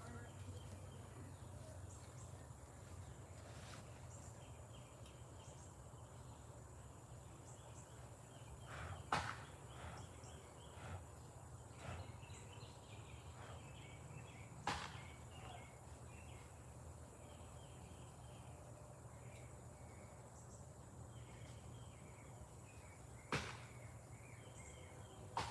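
Faint outdoor ambience: insects chirping in short repeated bursts over a low steady hum, with a few sharp clicks or knocks scattered through it.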